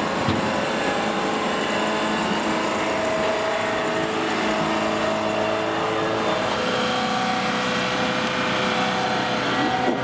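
An engine running steadily, with its pitch shifting slightly about six seconds in.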